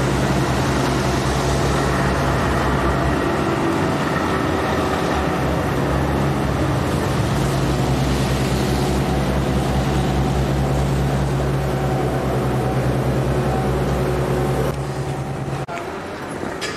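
Tram running with a steady low hum and a rushing noise, the pitch unchanging; it cuts off abruptly about fifteen seconds in.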